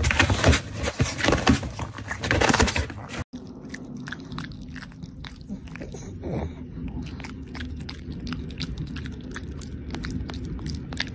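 A pug biting and tearing at packing tape on a cardboard box: loud, dense ripping and scraping. After about three seconds it gives way to a pug chewing a fibrous chew, a quieter run of separate clicks.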